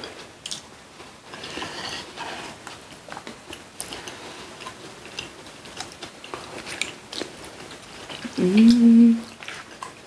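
Close-miked chewing and eating sounds with scattered small clicks, and a short hummed voice about eight and a half seconds in.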